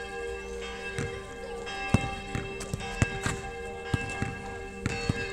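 A football being kicked and played on artificial turf: a handful of sharp thuds, the strongest about two and three seconds in, with more near the end. Steady ringing tones go on throughout underneath.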